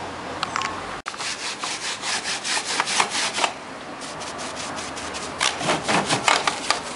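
A brush scrubbing the plastic keys of a Yamaha PSR-1000 keyboard in quick back-and-forth strokes, about four or five a second. It comes in two spells with a short pause between them, starting just after a brief dropout about a second in.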